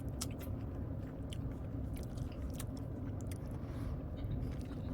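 A person chewing soft cake with the mouth close to the microphone, with small scattered wet mouth clicks over a steady low hum.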